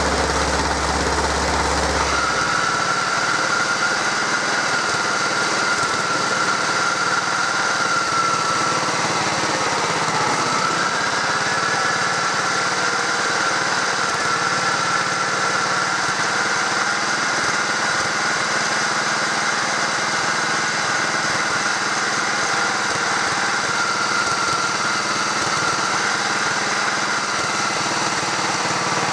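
Engine of a 1968 Stothert & Pitt W28 Mk1 vibrating roller running steadily on its first functional test, the machine raised on blocks. A deep low rumble stops about two seconds in, and the engine note dips briefly around ten seconds in, then recovers.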